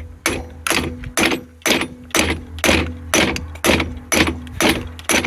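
Metal-on-metal hammer blows, about two a second, driving apart a seized, rusted telescoping driveline that has just started to move, each blow ringing briefly, over a steady low hum.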